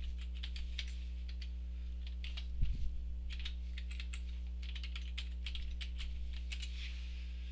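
Computer keyboard keys clicking in quick runs as a password is typed twice, over a steady low electrical hum. A brief low thump sounds about two and a half seconds in.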